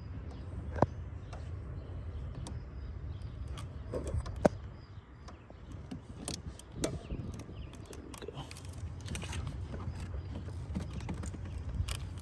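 Scattered clicks and taps of hands working hoses and clamps, with two sharper knocks, about a second in and about four and a half seconds in, over a low steady rumble.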